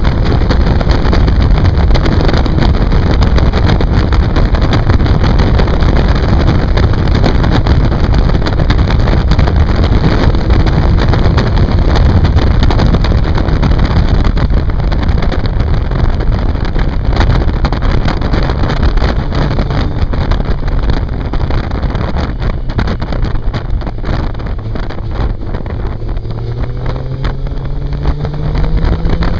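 Inline-four 750 cc motorcycle engine heard from onboard at road speed, mostly covered by heavy wind buffeting on the microphone. Near the end the engine note climbs as the bike accelerates.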